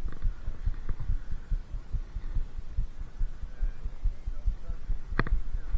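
Low, irregular thumping rumble of a body-worn camera microphone being buffeted, with a single sharp click about five seconds in.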